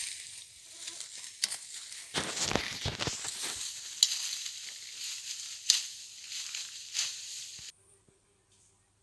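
Dense crackling, rustling noise with sharp clicks, fuller for about a second between two and three and a half seconds in, then cutting off suddenly near the end.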